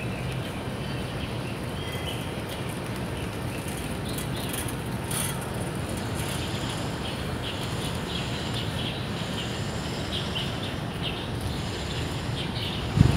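Outdoor ambience: a steady low rumble with birds chirping now and then, and a sudden thump near the end.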